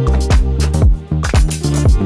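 Background music with a steady beat, deep bass drum hits that drop in pitch, and crisp percussion.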